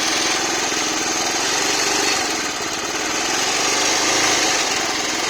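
Bajaj Pulsar 180F's single-cylinder engine idling steadily, with a noise in the engine that the owner cannot place.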